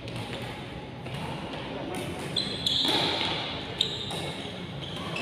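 Badminton rally: rackets striking the shuttlecock with sharp pops, clearest about two seconds and nearly four seconds in, with a brief high squeak in between. The hits echo in a large indoor hall.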